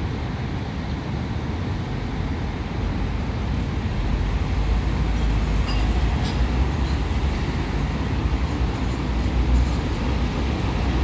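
Steady low rumble of city street traffic, growing louder about four seconds in.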